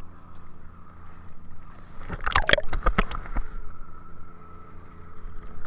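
Seawater splashing and gurgling around a camera held at the surface, with a cluster of loud splashes about two to three and a half seconds in, over the steady low hum of a fishing boat's engine.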